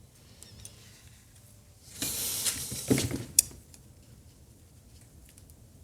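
Adhesive tape pulled off a roll in one short noisy strip about two seconds in, ending with a sharp click.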